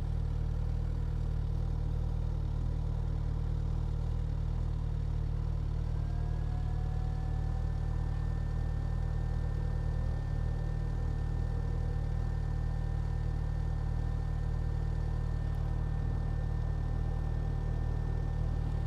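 Motorcycle engine running steadily. A faint high whine starts about six seconds in, rises slightly and then holds.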